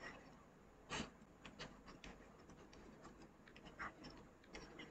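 Faint scratches and taps of a stylus writing on a pen tablet: a handful of short, light strokes amid near silence.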